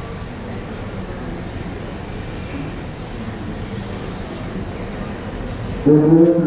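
Bus depot ambience: a steady rumble of bus engines and road traffic. Near the end, a loud, steady pitched sound starts abruptly.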